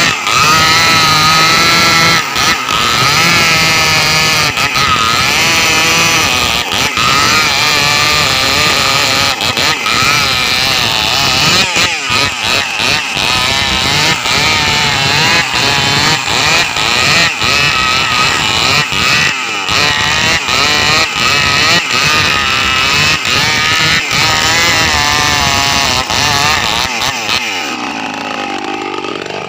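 Two Maestro CS6500L two-stroke chainsaws running at high revs together while cutting into hard teak trunks, their engine pitch wavering as they work in the wood. Near the end the revs fall away.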